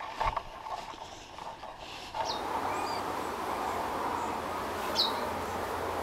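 Light knocks and clatter from a camera tripod being handled. Then, from about two seconds in, a steady outdoor hiss with a few short, high bird chirps.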